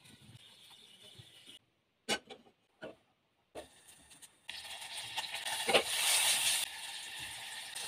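Cockscomb frying in hot oil in a small pan: the oil sizzles and spatters loudly from about halfway through, with one sharp knock at the loudest part, then keeps sizzling more softly. Before that, only a faint hiss and a few clicks.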